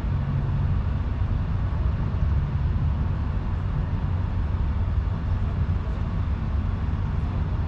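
Steady low outdoor rumble with a faint hiss over it, unchanging throughout.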